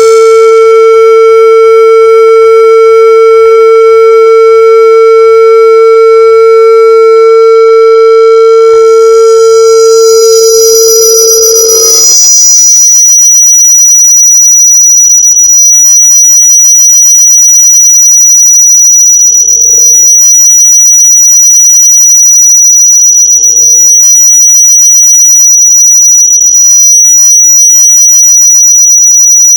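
Loud speaker feedback screech: a steady mid-pitched howl that about twelve seconds in switches to a shrill, high-pitched squeal, with three brief flickers of the lower howl in the later part.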